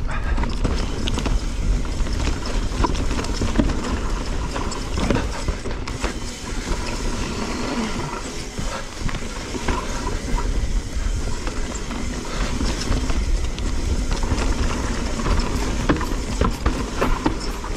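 Specialized Stumpjumper Evo Expert mountain bike ridden down a dirt trail: a steady clatter of tyres on the ground and chain and frame rattling, with many small knocks, over a constant low wind rumble.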